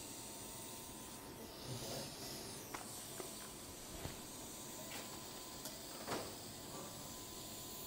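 Operating-room background: a steady hiss with a faint steady tone under it and a few faint clicks and knocks.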